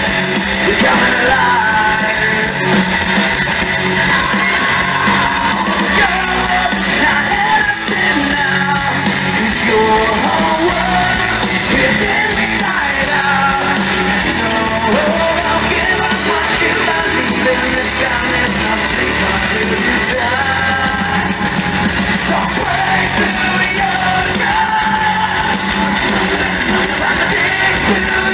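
Hard rock band playing live, with electric guitar, bass and drums and a voice yelling and singing over them.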